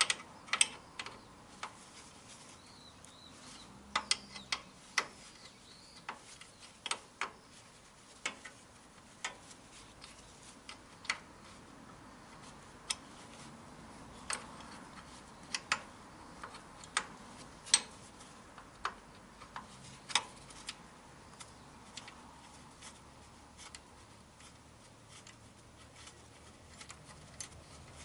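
Sharp metal clicks and clinks at irregular intervals, about one a second, from hand-tool work on the mounting bolts of a steel caster wheel. These bolts work loose easily.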